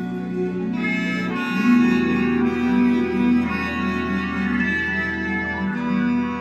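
Music played through DIY back-loaded horn speakers with Fostex FE126NV full-range drivers and BMS 4524 compression drivers on tractrix horns, driven by a homemade 829B single-ended tube amplifier. Held melody notes over a bass line, which comes in strongly about a second and a half in.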